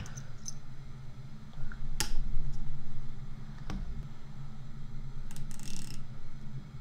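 Small steel ratchet parts clicking and tapping as a backing plate and retaining clip are fitted into a 90-tooth ratchet head. There is a sharp click about two seconds in, another just before four seconds, and a brief scrape near six seconds.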